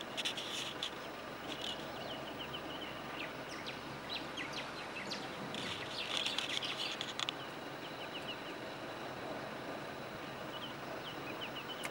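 Wild birds chirping in quick clusters of short, high calls, busiest near the start and about six seconds in, over a steady background hiss.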